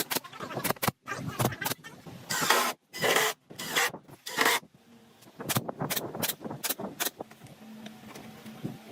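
Short scraping strokes, three in quick succession a few seconds in, among scattered clicks and knocks.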